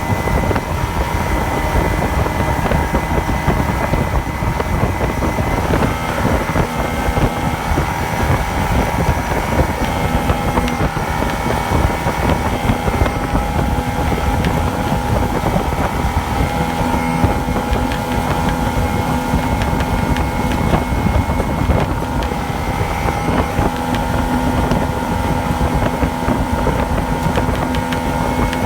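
Yamaha two-stroke engine running steadily, its pitch wavering slightly up and down now and then: the misfire and surge it suffers from.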